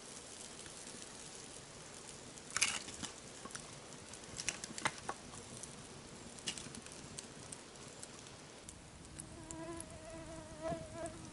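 Small campfire crackling, with sharp snaps and clicks as split kindling goes on. From about nine seconds in, a fly buzzes steadily close to the microphone.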